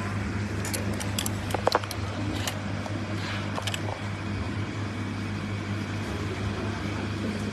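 A steady low hum with a few short clicks and knocks between about one and four seconds in, the loudest near the two-second mark.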